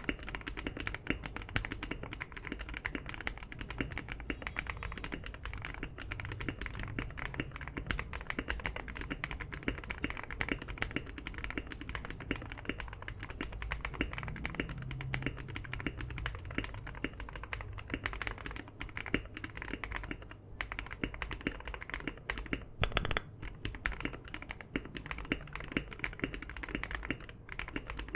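Continuous fast typing on a modded Akko Mod007 aluminium-case mechanical keyboard with lubed Akko CS Rose Red linear switches and PBT keycaps, many key clicks a second.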